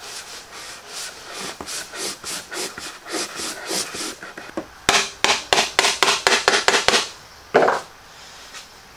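Glued wooden box joints being pressed together by hand, wood knocking and rubbing in short strokes; then about two seconds of sharp clicks, about five a second, as a trigger bar clamp is pumped tight, with one last click near the end.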